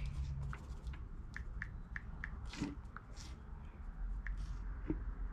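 Light, irregular clicks of a phone's touchscreen keyboard as a text message is typed.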